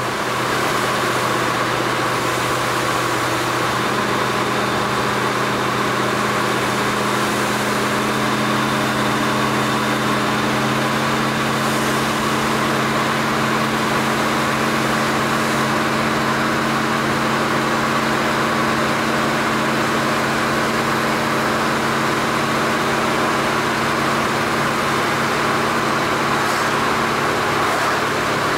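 1968 Pontiac GTO's V8 running steadily at cruising speed, heard from inside the cabin with road noise. The engine note holds a constant pitch, with a second low tone joining about four seconds in.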